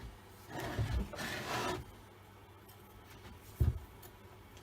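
Rubbing and scraping from hands and tools working on a chainsaw's top cover, with a single sharp knock about three and a half seconds in. The engine is not running.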